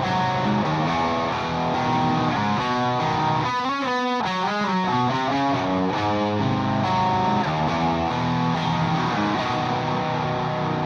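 Background music led by guitar, with stacked notes changing through a melody and a light effects-processed sound.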